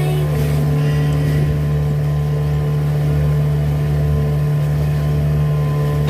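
Boat engine running steadily under way at speed: a constant low drone with rushing water and wind noise.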